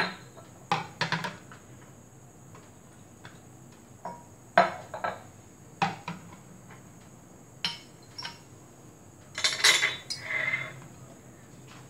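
Glass bottles clinking and knocking against each other and a ceramic plate as they are handled and set down: a series of short sharp clinks, with a quicker cluster of clinks near the end.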